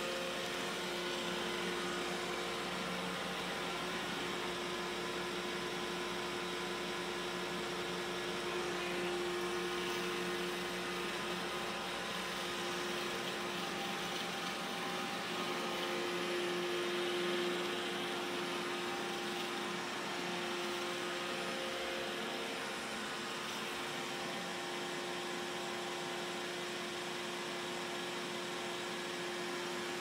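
Roomba robot vacuum running across a hardwood floor: a steady whir from its suction motor and brushes, with a few constant tones in it.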